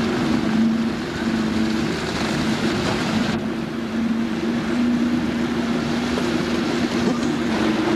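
Motorboat engine running steadily with the boat under way: a constant hum with a rush of noise over it.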